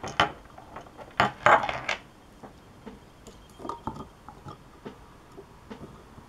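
Clicks and knocks from handling small lab items on a wooden table: plastic bottle caps and a glass test tube. A cluster of louder knocks comes about a second in, then lighter scattered taps.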